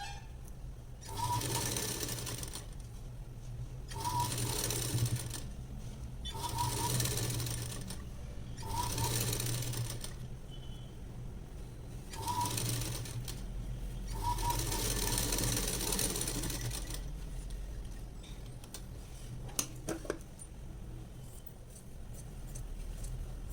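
Sewing machine stitching fabric in six short runs with brief pauses between, stopping about 17 seconds in. A few light clicks follow near the 20-second mark.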